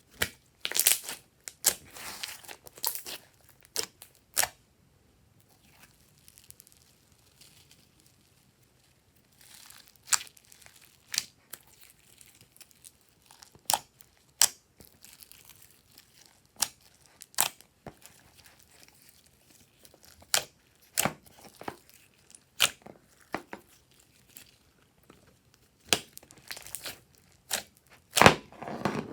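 Glossy slime being squeezed and stretched by hand: irregular sharp pops and clicks with soft crackling between them, falling quieter for a few seconds near the first third.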